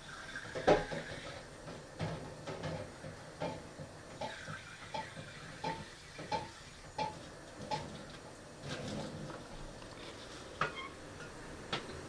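Carrion crows pecking at prey on a utility pole's metal crossarm: a run of sharp, slightly ringing taps, about one every 0.7 seconds, then a few scattered knocks near the end.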